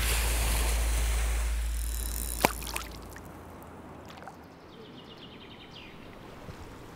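River-water ambience: a wash of water with a deep rumble fades away over the first three seconds, with one sharp click partway through. Quiet riverbank ambience follows, with a faint bird trill.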